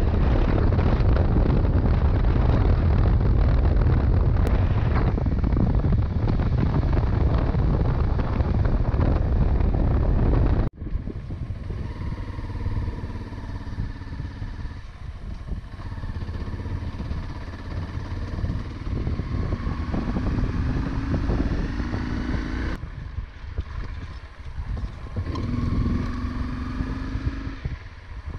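A motorcycle being ridden. For about the first ten seconds loud wind rush on the microphone covers the bike; then, after a sudden cut, the engine is heard plainly, its note rising and falling with the throttle.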